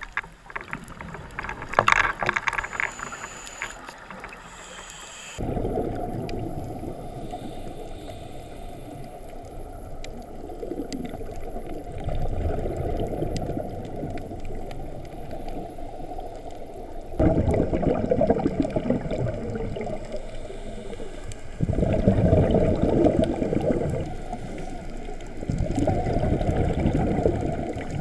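Scuba diver's regulator breathing heard through an underwater camera housing. Exhaled bubbles come as muffled rumbling bursts every few seconds, loudest and most regular in the last third.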